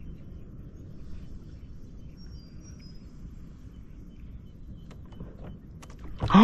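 Steady low outdoor rumble of wind and water around a kayak, with a faint high bird whistle about two and a half seconds in and a few light ticks near the end. Right at the end a man gives a sudden loud 'oh!' as a fish hits his surface lure.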